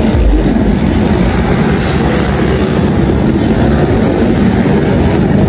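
Underbone motorcycles racing on a dirt motocross track, their engines blending into a loud, steady mix of engine noise.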